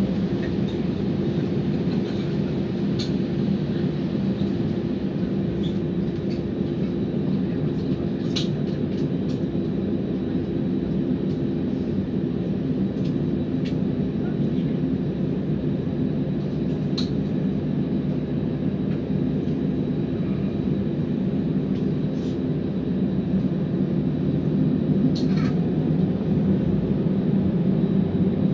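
Airliner cabin noise: the jet engines running steadily with a low hum and a few steady tones, with the aircraft held before the takeoff roll. It grows a little louder near the end. A few faint clicks sound now and then.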